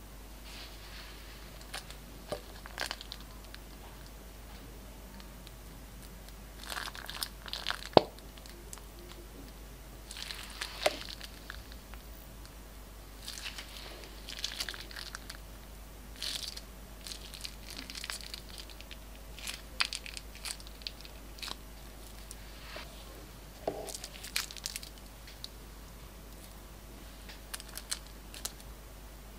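Glossy glitter slime being squeezed out of a plastic piping bag: irregular bouts of crinkling plastic and sticky slime crackle, with one sharp click about eight seconds in.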